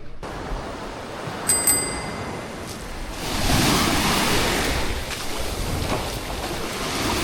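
Sea waves washing onto the shore, one wave swelling up and breaking about three seconds in. A brief high metallic ding, struck twice, sounds about a second and a half in.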